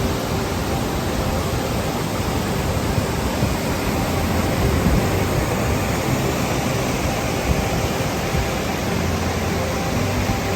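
Steady rushing noise of a waterfall cascading, an even hiss with no let-up.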